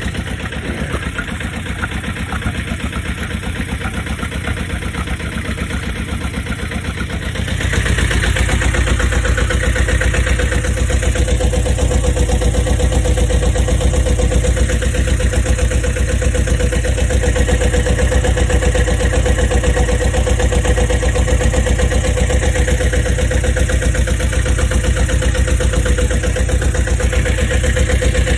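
Bukh DV8 inboard marine diesel running steadily with an even beat. About seven seconds in it turns clearly louder and heavier and holds there, running above its tick-over.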